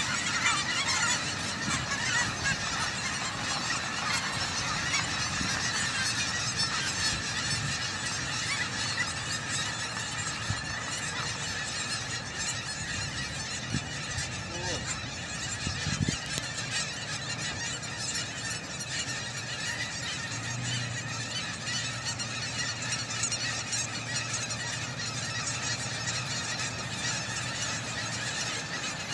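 A large flock of geese honking continuously, many calls overlapping into a steady din. A faint low hum joins in about two-thirds of the way through.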